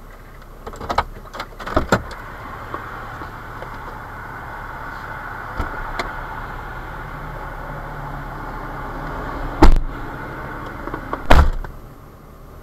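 Pickup truck cab with a steady hum, a few clicks and knocks near the start, then two loud, heavy door thuds about a second and a half apart near the end.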